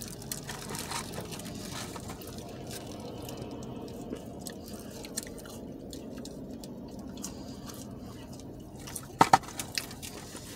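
Close-up chewing of fast food, wet and squishy, with small clicks here and there. A sharp knock about nine seconds in is the loudest sound.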